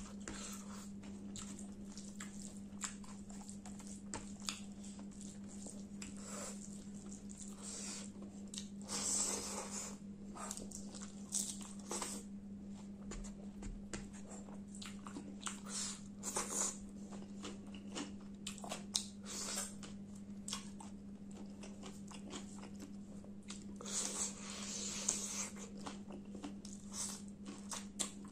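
Close-up eating sounds of a man eating rice and chicken curry by hand: chewing with many short wet mouth clicks and smacks, and louder squelching bursts about nine seconds in and again near twenty-four seconds. A steady low hum runs underneath.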